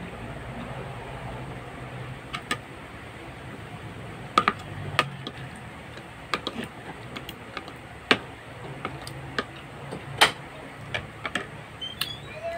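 Fork and spoon clicking against a food container while eating, about a dozen sharp, irregular clicks.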